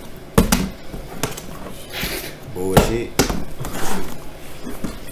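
A plastic water bottle being flipped and landing on a wooden floor: a few sharp thumps, the clearest near the start and a little past halfway, amid low voices.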